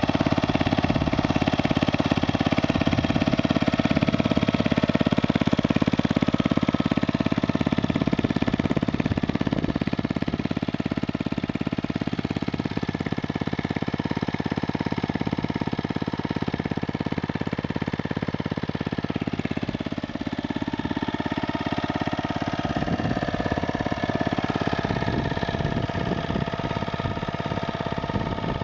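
5 hp Briggs & Stratton single-cylinder four-stroke lawnmower engine fitted to a bicycle, running steadily at idle.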